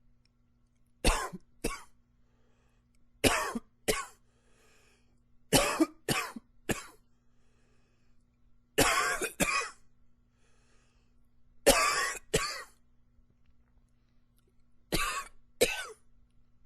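A man coughing in six short fits of two or three coughs each, a few seconds apart.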